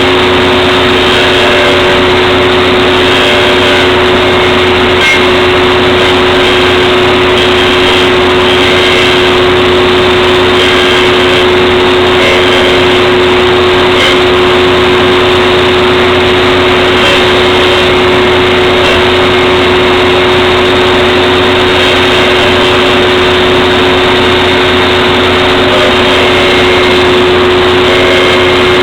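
Table saw running steadily, its motor holding one constant hum.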